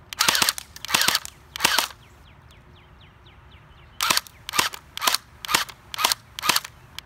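Battery-powered electric airsoft HK MP7 firing: three short bursts in the first two seconds, then after a pause a run of about seven single shots, about two a second.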